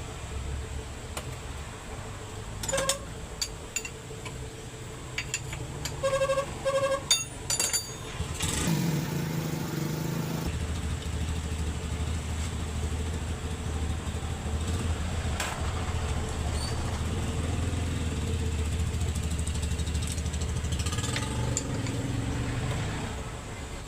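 Isuzu 10PC1 diesel engine cranking for about two seconds, catching, and then running at a steady idle. Several short beeps sound before it starts.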